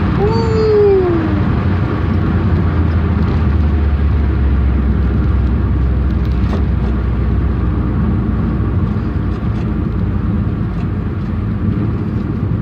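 Inside a Honda car at about 85 mph: steady engine drone and road noise, with a brief falling tone about a second in.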